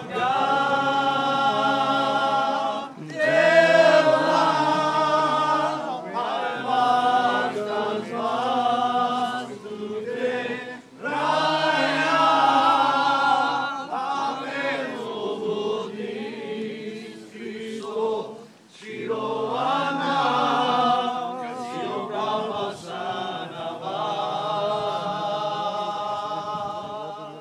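A group of people singing together without instruments, in long held phrases with short breaks every few seconds.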